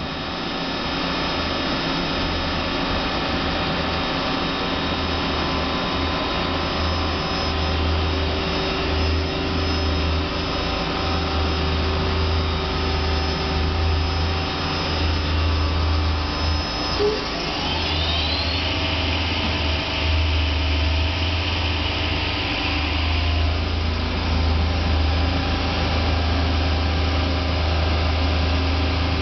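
Hardinge Quest 10/65SP CNC turning center running a program, a steady machine hum with a low drone and several steady tones. A little past halfway a whine rises, then holds at a higher pitch for about five seconds before fading.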